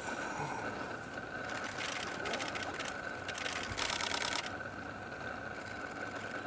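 Camera shutters firing in rapid bursts, four or so short runs of clicks about two to four seconds in, the longest about half a second, over steady wind noise.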